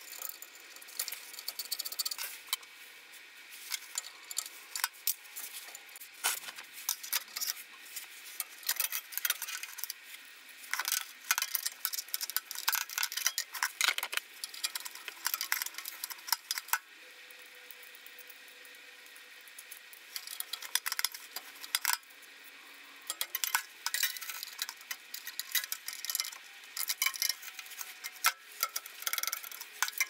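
Metal clicks, clinks and scraping from gloved hands refitting the igniter assembly inside a gas furnace's burner compartment, coming in irregular bursts with a quieter pause a little past the middle.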